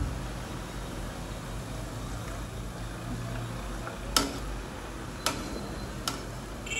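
Yam pieces deep-frying in hot oil, a steady sizzle, with three sharp clicks a little over four, five and six seconds in.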